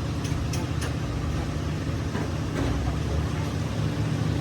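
A steady low machine hum with a few short sharp taps or clicks over it.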